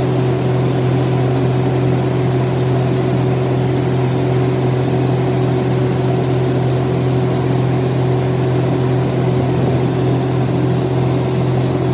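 Metal lathe running steadily, its motor and drive giving an even low hum with a constant higher tone above it.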